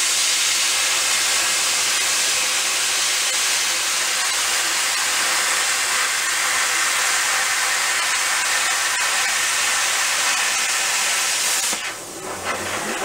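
Handheld plasma cutter cutting a long straight line through sheet metal: a loud, steady hiss of the air-plasma arc that stops about a second before the end.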